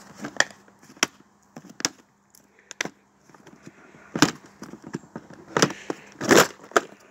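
Snap-clip latches on the lid of a Sistema plastic storage box being unclipped and the lid worked loose: a series of sharp, irregular plastic clicks and knocks, the loudest and longest about six seconds in.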